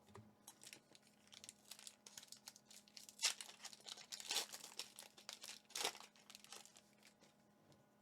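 Foil Pokémon TCG booster pack wrapper being crinkled and torn open by hand, a run of short crackles. The loudest stretch comes about three to four and a half seconds in, with another burst near six seconds.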